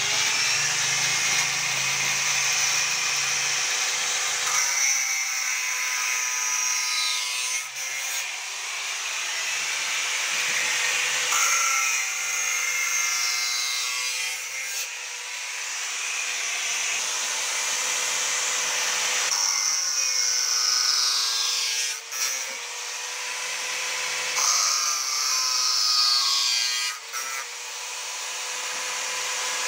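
Electric angle grinder running steadily and cutting along the edge of a wooden boat plank, striking metal nails as it goes. Its steady whine sags and the sound turns rougher about four times, each time the disc is pressed into the work.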